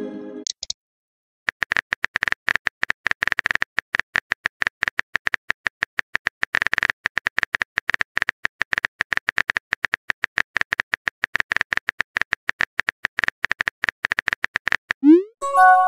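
Rapid clicking of a phone keyboard's typing sound effect, several clicks a second with short gaps. Near the end comes a short whoosh and a brief chime as the message sends.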